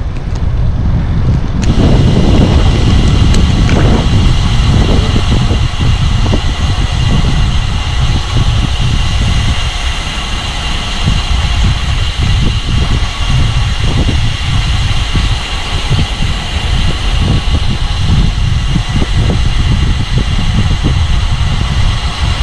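Wind buffeting the microphone of a moving bicycle ride: a loud, continuous low rush that swells and dips unevenly throughout.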